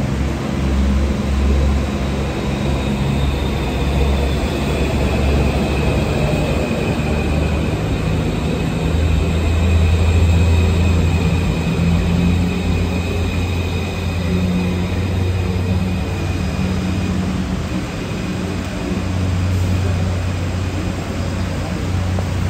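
Santiago Metro AS-02 train running: a steady low rumble with a faint high whine above it.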